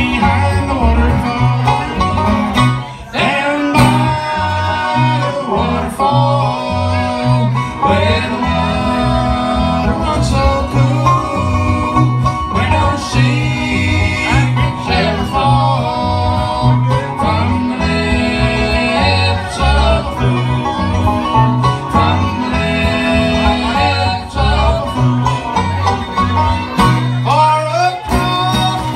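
Live bluegrass band playing: strummed acoustic guitars over a steady beat, with a fiddle.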